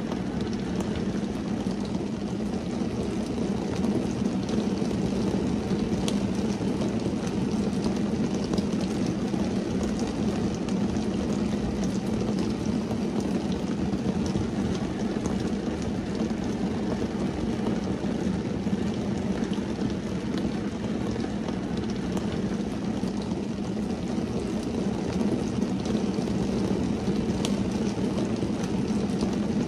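Steady rain drumming on a car's windscreen and roof, heard from inside the cabin as a dull, even patter with the odd sharper drop tick.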